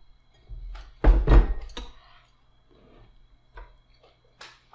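Tableware clatter: utensils knocking against bowls and a hot pot, with a quick cluster of heavy thunks and clinks about a second in, then a few single clicks.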